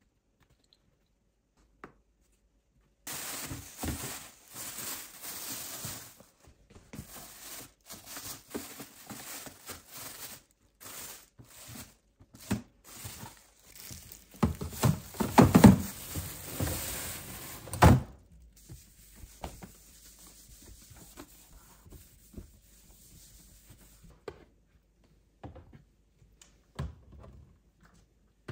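Plastic bin liner rustling and plastic kitchen waste bins being handled and knocked into place in a pull-out cabinet drawer, with several dull thunks. This starts after a few seconds of quiet and is loudest a little past the middle. It then dies down to faint handling, with one more knock near the end.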